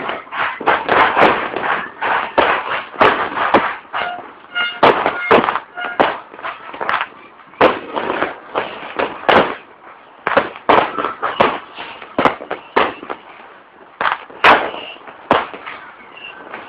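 Fireworks going off: a dense run of sharp bangs, several a second. They thin out for a few seconds after the middle, and one especially loud bang comes near the end.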